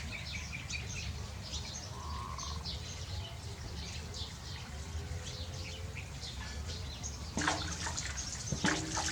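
Small birds chirping repeatedly over a steady low hum. About seven seconds in, louder, sharper noises start up.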